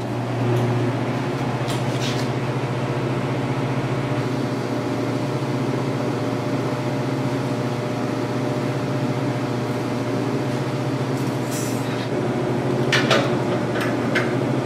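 Miller Syncrowave 351 TIG welding machine running after being switched on: a steady low hum over a hiss. A few clicks and knocks come through it, several near the end.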